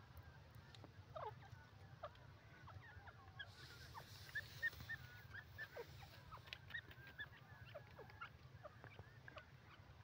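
Grey francolin giving soft, faint calls: scattered short chirps and quick falling notes, with a run of brief high notes around the middle, over a low steady rumble.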